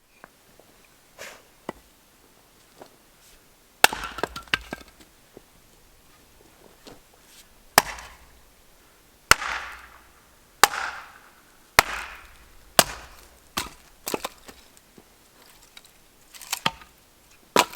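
Firewood being broken up for a campfire: about ten sharp woody cracks at irregular intervals of one to two seconds, several trailing off in a brief splintering crackle.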